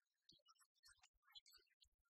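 Near silence, with only faint, scattered ticks.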